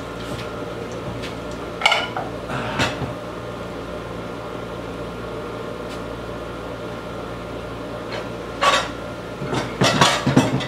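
Knocks and clatter of a chainsaw being handled and turned on a wooden workbench: a couple of bumps early and a busier cluster of knocks near the end. A steady hum from a window air conditioner runs underneath.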